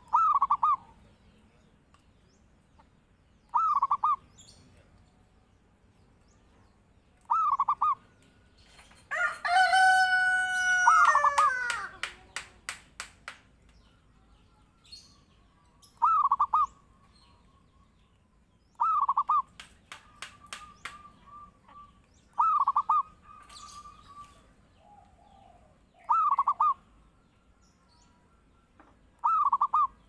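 Zebra dove (perkutut) singing its short cooing phrase about every three and a half seconds, some nine times. About nine seconds in, a rooster crows once, long and loud, falling in pitch at the end.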